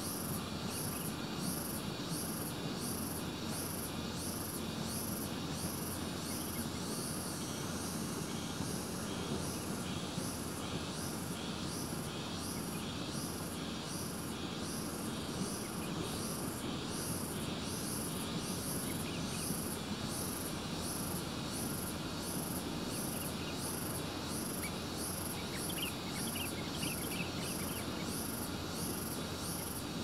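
Insect chirping in an even rhythm, about two high-pitched pulses a second, over a steady low background noise.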